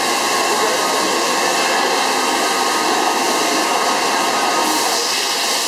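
BEMATO BMT 1300NCT NC radial drilling machine running, a loud, steady whir with no distinct strikes or changes.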